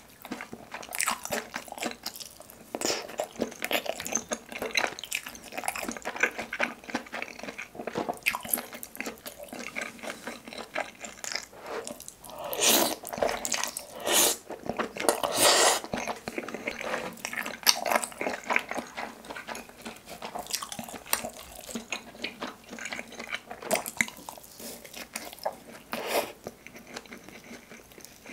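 Close-miked mouth sounds of eating spicy tteokbokki: chewing soft, chewy rice cakes, glass noodles and cheese in sauce, with many wet smacks and clicks. A louder stretch of slurping comes about halfway through.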